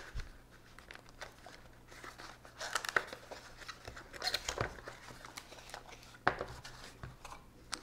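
A small cardboard box being opened by hand: soft, irregular scrapes and taps of the card flaps, with light crinkling of the plastic bag around a cable inside. The sharpest tap comes just after six seconds in.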